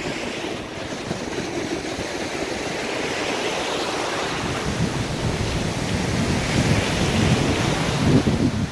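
Ocean surf washing in, with wind buffeting the microphone; the wind rumble grows stronger over the last few seconds.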